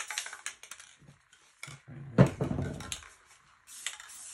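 Aerosol spray-paint can hissing in short bursts, with clicks and clacks from the can being handled, and a sharper knock about two seconds in.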